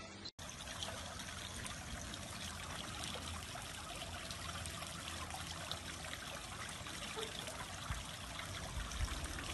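Water trickling steadily in a garden pond or fountain.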